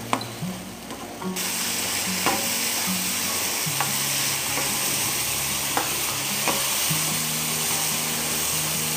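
Chopped tomatoes and ginger frying in hot coconut oil over high flame, sizzling steadily as a spatula stirs them, with an occasional click of the spatula against the pan. The sizzle gets louder about a second and a half in.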